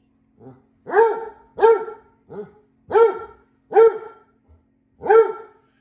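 Basset hound barking repeatedly at a robot floor mop: about seven deep, drawn-out barks in a row, each falling in pitch at its end, two of them softer.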